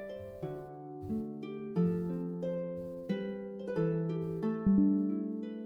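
Background music: a slow melody of plucked notes, each one ringing out and fading.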